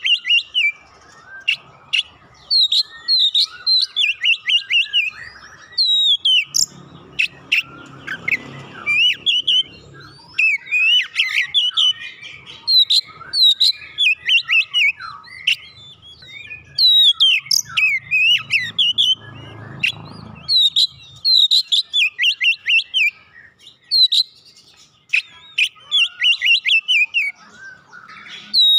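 Oriental magpie-robin (kacer) singing: a fast, varied song of loud whistled notes and chirps that sweep up and down in quick phrases, with only brief pauses between them.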